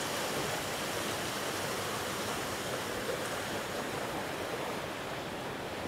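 Steady rush of water leaking through and under the lock gates, pushed by the difference in level between the upper and lower water.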